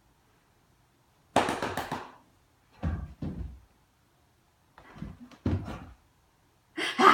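A dog with post-bath zoomies thudding and scuffing on a rug and wooden floor: paws scrabbling and its body dropping and rubbing on the rug, in four short bursts of thumps, the loudest near the end.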